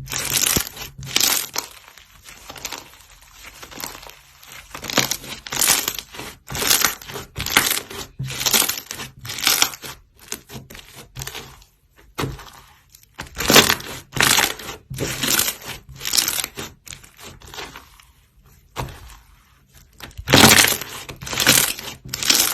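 Slime being pressed and squeezed by hand: a run of short, noisy crackling bursts, about one to two a second, with a couple of brief pauses.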